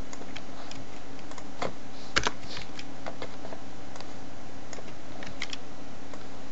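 Irregular keystrokes on a computer keyboard, scattered taps with a few louder clicks about two seconds in, over a steady background hiss and faint hum.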